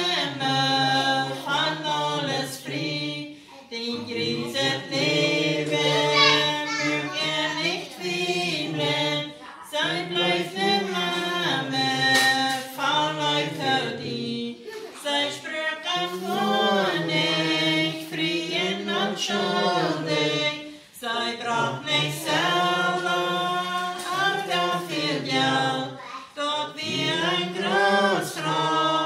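Several voices singing a Plautdietsch (Mennonite Low German) song together in harmony, without accompaniment, in phrases of a few seconds with short breaths between them.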